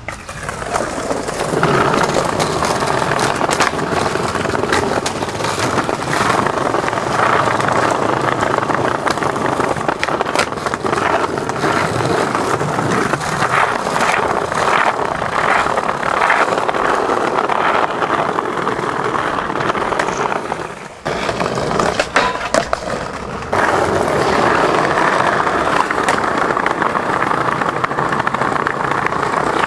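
Skateboard wheels rolling over paved paths, a loud, steady, rough rumble. About three-quarters of the way through it drops out briefly, a few sharp clacks of the board are heard, and then the rolling resumes.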